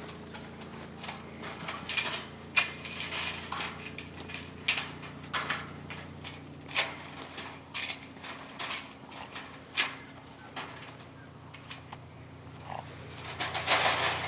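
Metal gate hardware clinking and rattling as a steel pipe pasture gate is unlatched and swung open: a series of sharp, irregular metallic clinks, with a shuffle of movement near the end as the horse is led through.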